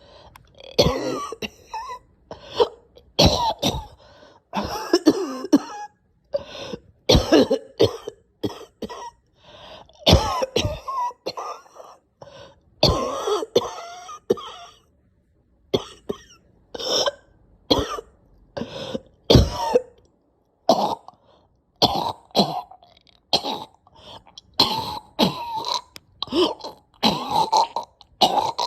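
A person coughing in nasty, repeated fits: strings of sharp coughs one after another, broken by short pauses, with a quiet gap of about a second and a half a little past the middle.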